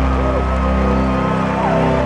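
Synth-pop band playing live through a large arena sound system: deep, sustained synth bass notes under a steady higher synth tone, with a few short rising and falling whoops from the crowd.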